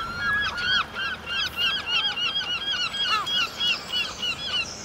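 A flock of geese honking: many short, overlapping calls, several a second, that stop just before the end.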